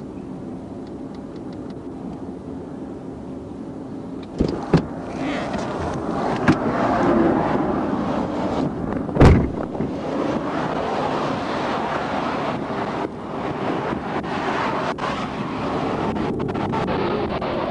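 Cars passing on the highway and wind on the microphone, getting louder about four seconds in. There are a few sharp knocks around then and a loud thump about nine seconds in.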